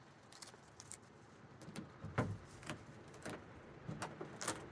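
Faint, irregular crackles and taps of duct tape being handled and pressed onto a cracked plastic roof-box shell, with the loudest snaps about two seconds in and near the end.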